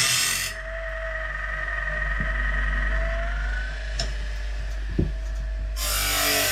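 Powered grinder sharpening a sawmill blade. A loud gritty grind stops about half a second in, a motor hums with two sharp clicks, and a second loud grind starts near the end.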